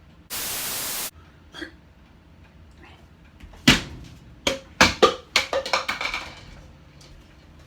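A short burst of steady hiss lasting under a second. A few seconds later, one loud knock, then a rapid run of knocks and clatter that dies away.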